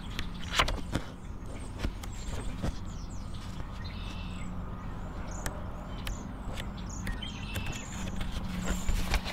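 Paper pages of a booklet being turned and handled, giving a few short crisp rustles, over a steady low hum.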